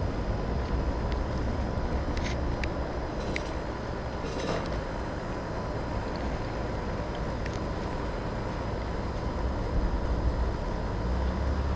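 Steady rumble of road traffic passing on a nearby highway, with a few faint short ticks over it.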